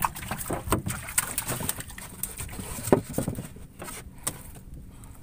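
Irregular knocks and taps on the wooden hull of a small dugout fishing boat as a freshly caught needlefish is handled in the bottom of the boat. The loudest knock comes about three seconds in, and they grow sparser toward the end.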